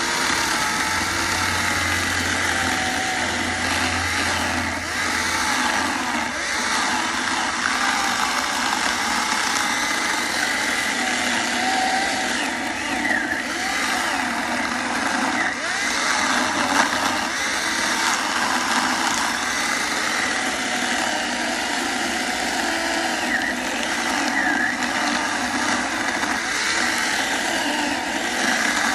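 Electric chainsaw running continuously, a steady motor whine with small shifts in pitch.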